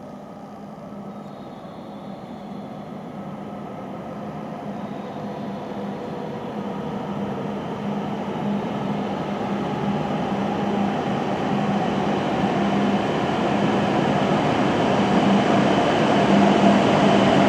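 Hokuriku Shinkansen Hakutaka train (E7/W7 series) approaching the platform to stop, its running noise growing steadily louder, with a steady low hum running through it.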